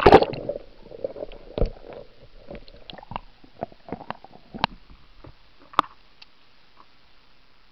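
Kayak on the water: a loud splash at the start, then water sounds and irregular sharp knocks.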